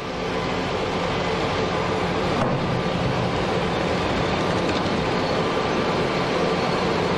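Steady noise of heavy machinery working a granite quarry, a dense din with a low hum running through it.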